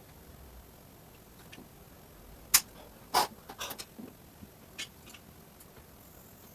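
A few sharp knocks and clicks from ceiling fan parts and tools being handled, the loudest about two and a half seconds in, followed by a quick cluster of lighter clicks a second later and one more near the end.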